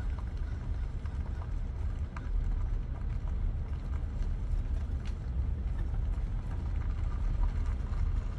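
Vehicle driving slowly, heard from inside the cab: a steady low rumble of engine and tyres, with a few faint knocks and rattles.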